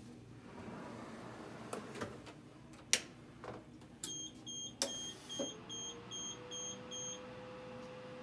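W&H Lisa autoclave sterilizer beeping at power-up: a quick run of short, high electronic beeps, about three a second for three seconds. A steady hum from the machine starts partway through, after a few knocks as the unit is pushed back into place.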